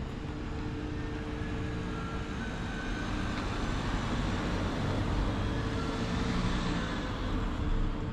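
Aerial ropeway's drive machinery running in its machine room: a loud, steady mechanical hum with two low tones held throughout.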